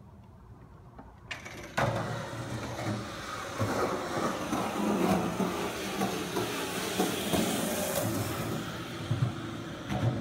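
Skateboard wheels rolling over concrete. The rumble starts sharply about two seconds in and stays loud as the board comes past, with a few knocks along the way.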